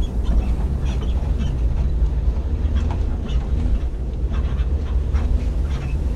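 Off-road rally vehicle engine running under load on a rough desert track, heard from inside the cab: a heavy, steady low rumble with a wavering engine note, over scattered rattles and knocks from the cab and chassis.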